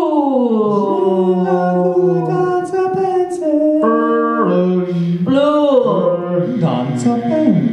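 Several voices improvising wordless sounds together: long held notes overlapping with slow glides that sweep up and down in pitch, loud and continuous.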